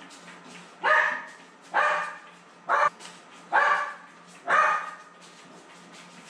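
A dog barking five times, about one bark a second, the third bark shorter than the rest.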